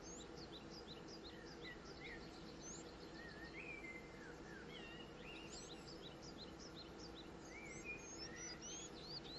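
Several birds chirping and calling, in short quick notes that sweep up and down, heard faintly over a steady low background hum.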